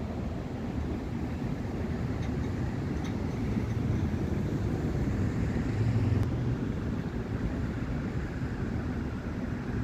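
Road traffic: cars driving past on a multi-lane road, a steady tyre and engine rumble that swells as vehicles pass in the middle.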